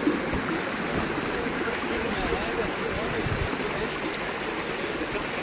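Steady splashing and bubbling of a row of small fountain jets in a shallow water channel.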